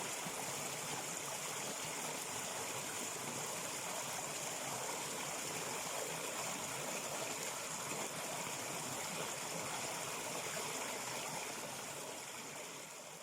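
Steady rushing and trickling of a flowing stream, fading out near the end.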